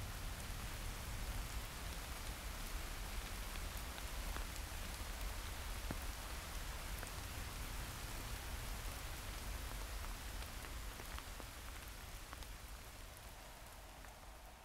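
Steady rain falling in woodland, a dense hiss with many separate drop ticks and a low rumble beneath; it eases off toward the end.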